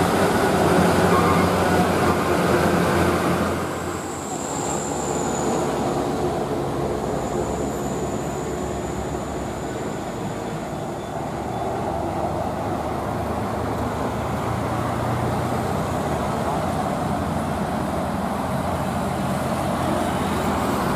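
Diesel engine of a loaded Hino dump truck running hard under load, a steady rumble mixed with passing road traffic. The sound shifts about four seconds in, with a thin high whine for a few seconds after.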